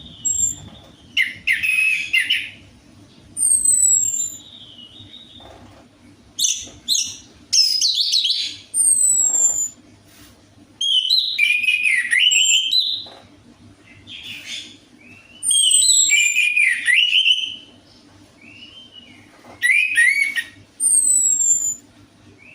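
Orange-headed thrush singing: loud, varied phrases every second or two, warbled notes mixed with high descending whistles, with short pauses between them. A faint steady hum runs underneath.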